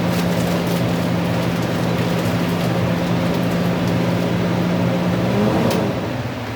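Steady hum of a running kitchen appliance motor over an even hiss. About five seconds in, the hum bends up and back down briefly, then a click.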